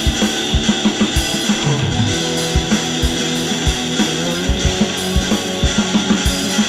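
Instrumental band music: guitar over a drum kit, with a steady run of kick-drum hits and no vocals.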